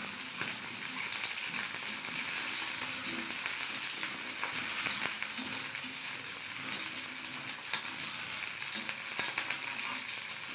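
Green chillies and garlic sizzling steadily in hot oil in a kadhai while they are roasted for thecha. A spatula stirs them, with faint scrapes and taps against the pan now and then.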